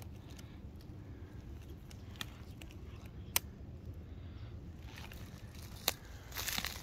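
Footsteps rustling and crunching through dry leaf litter near the end, after a quiet stretch broken by a few single sharp clicks, over a steady low rumble.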